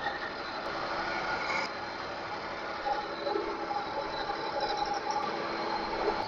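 Milling machine end mill cutting a small metal tool-holder blank clamped in a vise: a steady grinding cutting noise with a whine running through it.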